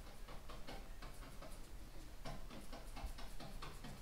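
A run of small, sharp mechanical clicks, about four a second, with a short break about halfway through.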